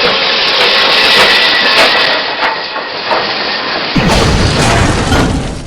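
Loud hissing rush, joined about four seconds in by a deep rumbling boom that fades near the end.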